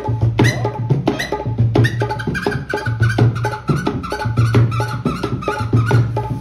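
Folk music for a string-puppet show: a fast, steady hand-drum rhythm over a low pulsing beat, with a high wavering melody line above it.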